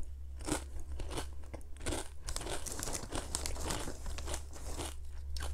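Chewing potato chips: close, irregular crisp crunches. A plastic chip bag crinkles as a hand reaches into it.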